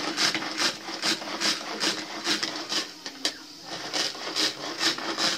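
Manual pull-cord vegetable chopper being worked: the cord pulled again and again, about two to three pulls a second, each a short whirring rasp as the blades spin inside the bowl.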